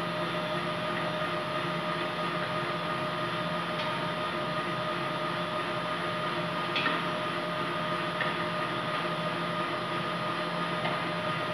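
Steady mechanical hum of commercial kitchen equipment, with a few fixed tones running through it. A few faint light clicks come as a knife spreads topping on bread, the clearest about two-thirds of the way in.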